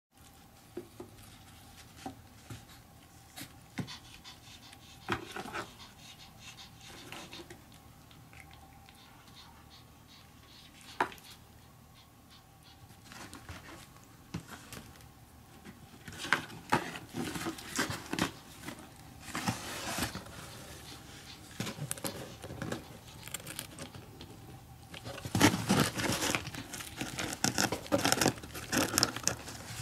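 Scattered taps and light scratches on cardboard and straw as a cat paws at a small straw hat from inside a cardboard box, building near the end into loud, dense rustling and scrabbling as the hat is pressed down into the box.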